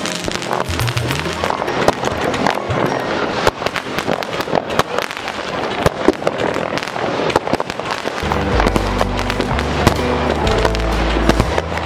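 Fireworks going off: a dense, continuous run of crackling and sharp popping bangs from a ground fountain and rockets. Music with a heavy bass line plays under it and becomes prominent about eight seconds in.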